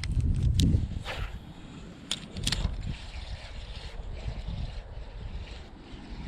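Wind buffeting the microphone, a low rumble that is strongest in the first second, with a few brief sharp clicks.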